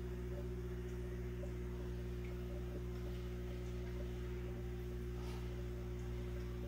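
Steady electrical hum of running aquarium equipment, holding one unchanging pitch throughout.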